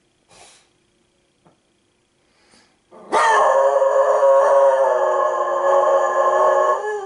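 Dog howling: one long, steady howl starts about three seconds in and holds for about four seconds, breaking up near the end.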